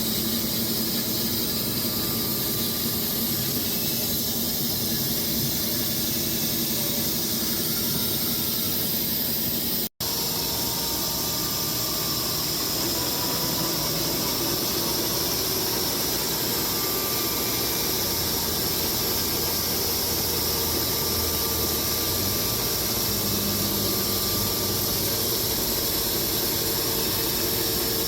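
Wood-Mizer LX250 electric band sawmill cutting through walnut and oak logs at once: a steady, high-pitched hiss of the blade in the wood. It is broken once by a split-second gap about ten seconds in.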